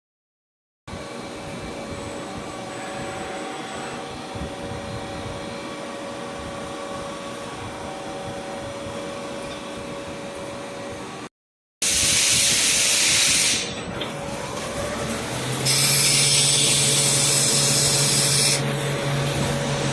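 CNC lathe running while it machines polyacetal pulleys: a steady motor hum with several steady tones. The sound breaks off briefly, then comes back with two loud spells of high hissing, the second with a low hum under it.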